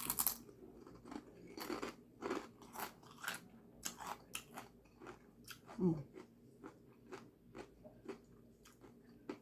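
Close-up eating sounds: a crisp bite into a toasted sub sandwich at the start, then chewing with irregular crunches of the toasted bread. There is a brief vocal sound just before six seconds in.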